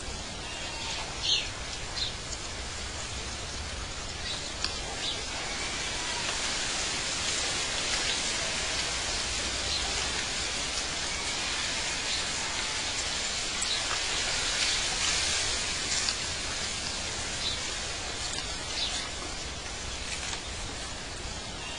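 Outdoor nature ambience: a steady rushing hiss with short, high bird chirps every few seconds.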